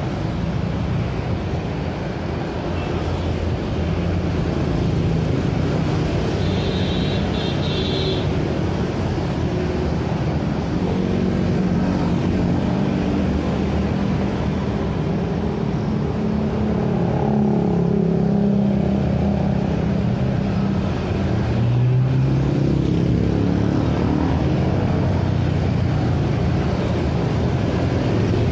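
Dense city road traffic: a steady stream of motor scooters and cars passing close by, their small engines running and tyres rolling on asphalt. A short high-pitched tone sounds about seven seconds in.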